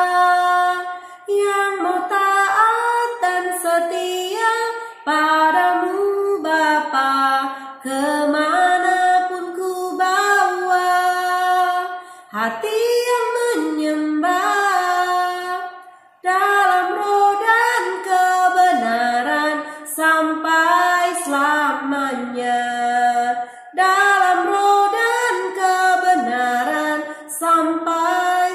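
A woman singing a slow Indonesian worship song solo, in long, held phrases with short breaks for breath between them.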